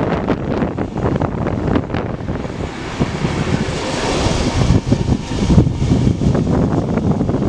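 Train of n-Wagen coaches rolling through a station throat, heard from an open coach window: a steady rumble of wheels with rapid clicks and clatter over points and rail joints, and wind rushing over the microphone that swells about halfway through.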